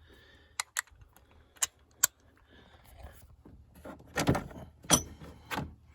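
Metal hand tools clicking and clinking as a spark plug socket, extension and 3/8 ratchet are fitted and worked on a spark plug: a few light clicks in the first two seconds, then louder knocks and clinks about four to five and a half seconds in.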